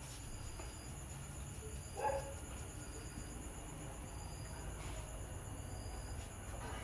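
Steady high-pitched chirring of night insects over a low background hum, with one short call about two seconds in.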